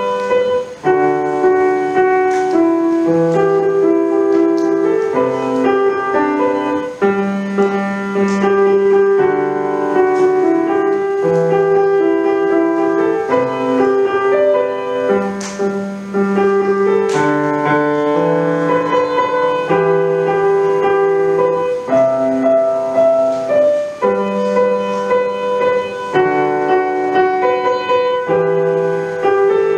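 Grand piano played solo, a melody carried over low bass notes that change every second or two.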